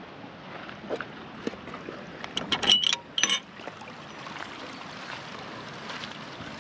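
Steady rushing of river water, with a short cluster of sharp clicks and knocks a little before the middle.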